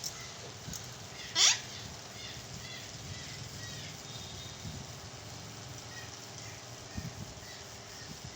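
A parrot gives one short, sharp screech about a second and a half in, with faint small chirps in the background.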